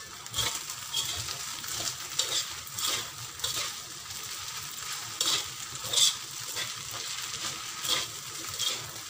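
Fried glass noodles sizzling in a wok on a gas stove while a metal spatula stirs and turns them, with irregular scrapes and clinks of metal on the pan. The noodles are already cooked and are being given a last toss before serving.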